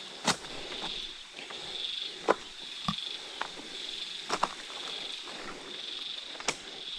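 An insect calling in a high buzz that pulses about once a second, over a faint background hiss. Several sharp clicks and knocks, footsteps on stream rocks, break in at uneven intervals.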